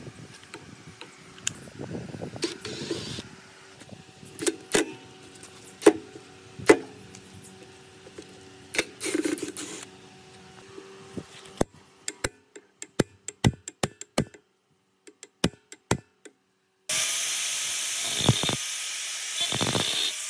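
Scattered metal knocks and clinks with a short ringing as tools work on an old, rusty electric motor, then a quick run of sharp clicks. Near the end an angle grinder with a cutting disc starts abruptly and cuts steadily into the rusty steel motor housing, much louder than the rest.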